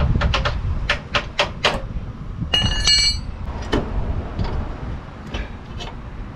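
Metal tools and parts being handled at an ATV's stripped rear hub: a quick run of sharp clicks and knocks, then a metal piece ringing for about half a second some two and a half seconds in, followed by a few scattered lighter clicks.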